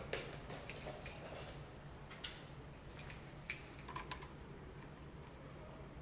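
Faint, scattered clicks and scrapes of hands twisting stripped white neutral wires together into a tight splice, with a low steady hum underneath.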